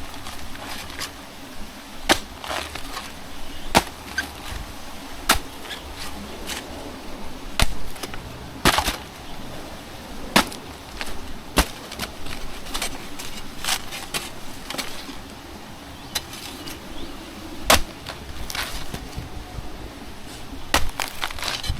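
Heavy-duty spade chopping into a banana pseudo-stem to split the segments in half: a dozen or so sharp chops at irregular intervals of one to two seconds.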